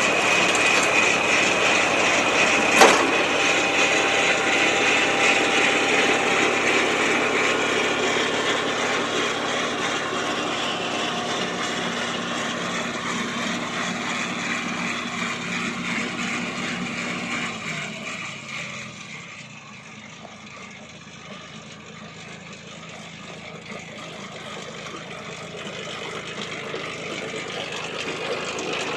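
Kubota LX2610 compact tractor's diesel engine running with the front-mounted Kubota snowblower engaged. The sound grows fainter from about two-thirds of the way in, then builds again near the end; one sharp crack about three seconds in.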